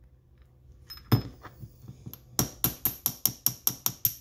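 A single knock about a second in, then a steel rod tapped quickly and repeatedly against a starter's Bendix drive: sharp ringing metal-on-metal taps, about five a second.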